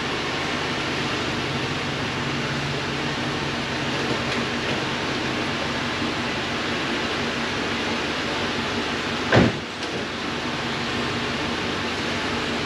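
Chevrolet Monte Carlo idling with a steady hum, and its door shutting with a single thud about nine seconds in.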